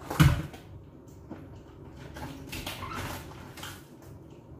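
Live crabs being handled: a hard knock just after the start, then softer scraping and rattling of shells against the sink and bucket as a crab is picked up.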